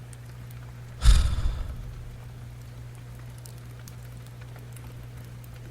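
Steady rain ambience, with one brief loud noise about a second in.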